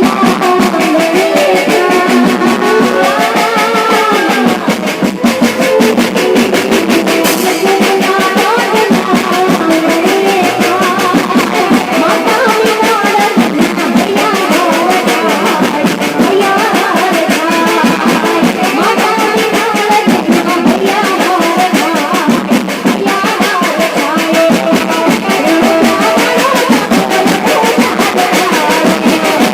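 Loud music played over a sound system: a steady drum beat under a wavering melody line.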